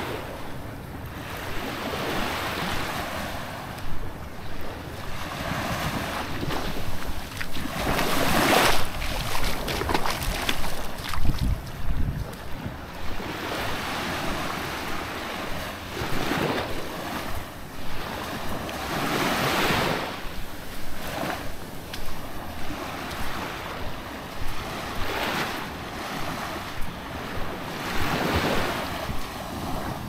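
Small waves lapping and washing onto a sandy shore, swelling and falling back every few seconds, with wind rumbling on the microphone.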